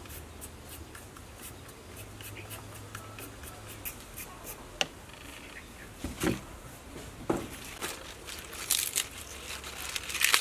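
Hand vegetable prep: a peeler scraping a carrot in a series of short strokes, then a few knocks as vegetables go into a steel bowl. Near the end comes a louder crisp snapping and tearing as leaves are pulled off a stalk of leafy greens.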